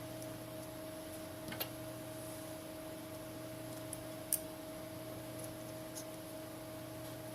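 A few short, sharp clicks and taps of small phone parts and tools being handled during smartphone reassembly, the clearest about a second and a half in and again past four seconds, over a steady electrical hum.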